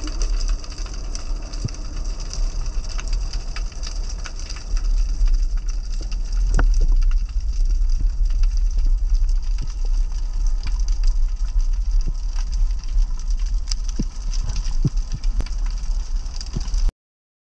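Muffled underwater rumble picked up by a camera held under water, with scattered sharp clicks and crackles. It grows louder about five seconds in and cuts off abruptly just before the end.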